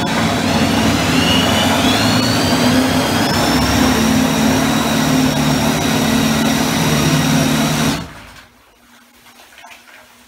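Old Yamaha electric trolling motor running at maximum thrust submerged in a bathtub, its propeller churning the water; the motor's whine rises in pitch over the first few seconds as it spins up, holds steady, then cuts off suddenly near the end, leaving only faint sloshing and fizzing of the foamy water.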